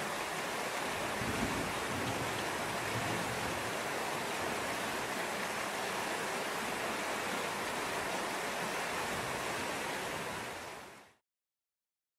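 A steady rushing hiss, like running water or wind noise, that fades out to silence near the end.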